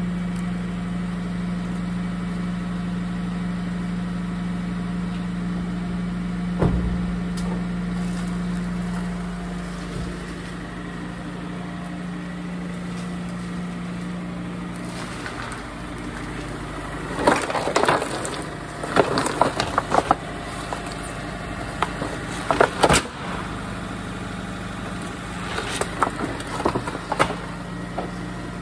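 Empty cardboard frozen-food boxes crunching and crackling under a Honda Insight's tyres as it rolls over them, in three bursts in the second half. Earlier a single thud, like a car door shutting, about six and a half seconds in, over a steady low hum that fades about halfway through.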